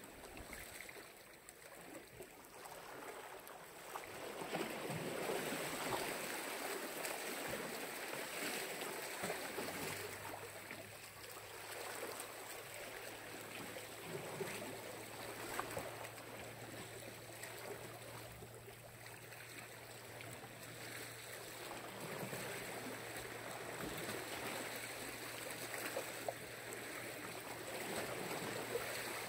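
Black Sea waves washing in, a steady rush of water that swells and eases every several seconds. A low steady hum joins about ten seconds in.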